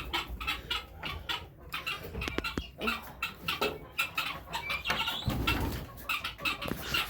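Chickens clucking, many short calls overlapping.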